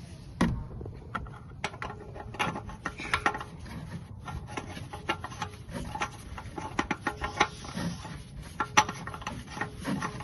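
Irregular handling noises from fitting an oil filter: a scatter of clicks, taps and rubbing as the filter housing is wiped and the filter and its cap are set back in place by hand, with a sharper click near the start and another about nine seconds in.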